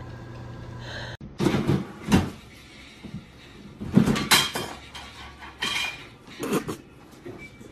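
Plastic trash can and its lid knocking and clattering as a cat climbs in and out through the top. The knocks start about a second in and come as a run of separate knocks over several seconds.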